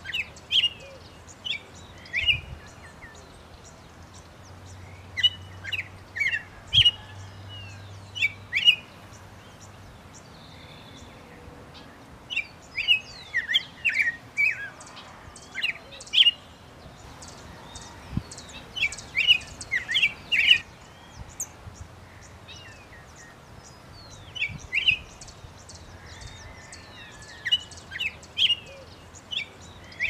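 Songbird singing: phrases of quick, high chirps and short whistled glides, each phrase lasting a few seconds, with brief pauses between them.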